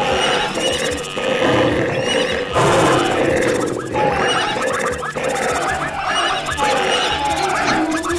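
Stampede sound effects: horses whinnying among other animal calls, layered over background music.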